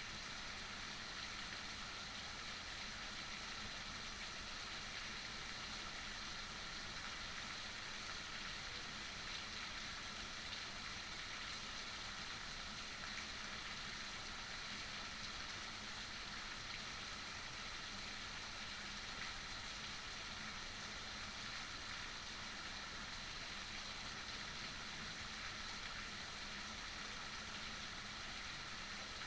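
Heavy rain falling steadily, an even hiss that holds the same level throughout.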